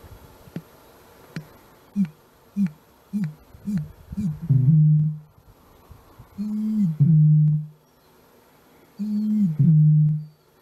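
Male Eurasian bittern booming, the breeding male's advertising call. A run of about five short, low gulps leads into three deep booms, each about a second long and a little over two seconds apart.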